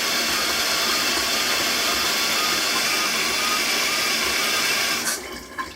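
Shower water spraying steadily from an LED shower head, an even loud hiss that stops abruptly about five seconds in as the water is shut off.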